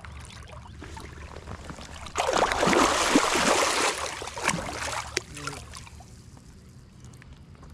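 A sturgeon thrashing in shallow water. About two seconds in there is a loud burst of splashing that lasts around two seconds, followed by a few smaller splashes.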